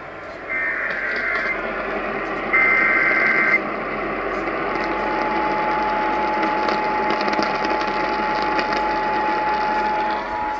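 Emergency Alert System SAME header tones: two one-second bursts of screeching digital data, a second apart, the second louder. They are followed about four and a half seconds in by a steady attention tone, over a steady hiss of noise. The sequence opens an EAS flash flood warning.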